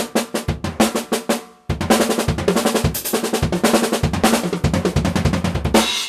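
Drum kit played in fast gospel-chop fills, rapid sticking across snare, toms and bass drum, with a short break about a second and a half in. A longer run follows and ends on a cymbal hit that is choked by hand, so the sound cuts off abruptly.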